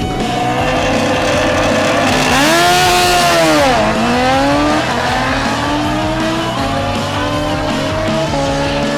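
Drag-racing sport motorcycle engines: a hard rev rises and falls about two to four seconds in as the bikes launch, then the engine note climbs steadily with breaks at the gear changes. Music plays underneath.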